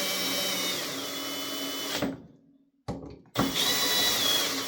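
Power drill-driver running in two bursts as it drives in the ignition coil mounting bolts, its whine dropping in pitch partway through each run as the bolt seats and the motor takes load.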